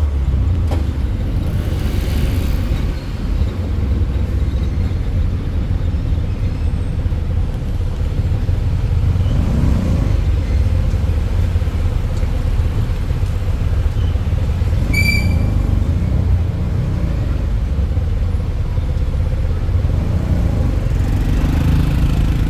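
Steady low rumble of a road vehicle in motion, engine and road noise, with a brief high-pitched beep about fifteen seconds in.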